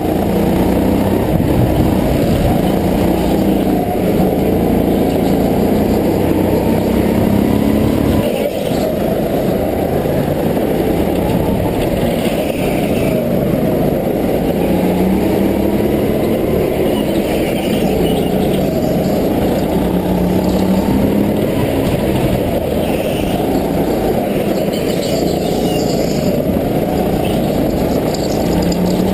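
Go-kart engine running hard on the driver's own kart, its pitch rising and falling over and over as the throttle is opened and eased through the corners, sounding muffled with little high end.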